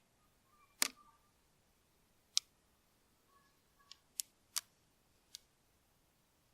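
Six short, sharp clicks at uneven intervals, the loudest about a second in and about two and a half seconds in, over a quiet background.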